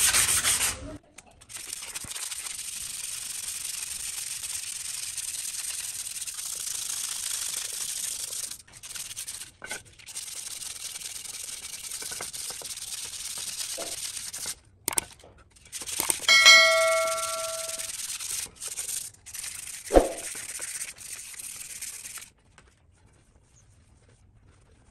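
A Ford 3600 tractor brake plate being rubbed down by hand, a steady scraping hiss with a few short breaks. About two-thirds of the way through, the metal rings briefly, and a sharp knock follows soon after. The rubbing stops shortly before the end.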